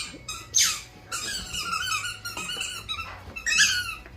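Squeaky dog toy squeaked over and over as a dog chews it: a quick string of high-pitched squeaks, loudest about half a second in and again near the end.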